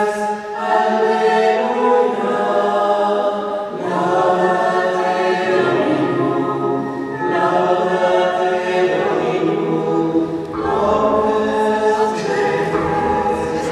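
A choir singing a slow sacred chant, holding each note for a second or two before moving to the next.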